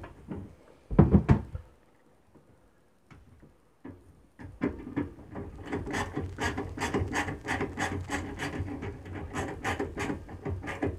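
A self-tapping screw being driven in by hand with a screwdriver, rasping in quick repeated strokes, about three a second, from about four seconds in. There is a single knock about a second in.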